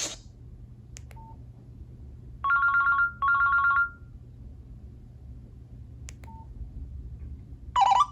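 Nokia 5610 XpressMusic ringtone speaker playing a two-tone telephone-style ring: two short rings, each about half a second, beginning a couple of seconds in. A click and a short beep come before it and again near the end, and the next tone starts just before the end.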